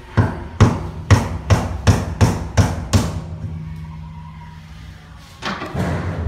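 A quick run of about eight sharp knocks, a little under three a second, made while vinyl sheet flooring is pressed down onto the glued floor. A rustling scrape of the sheet follows near the end.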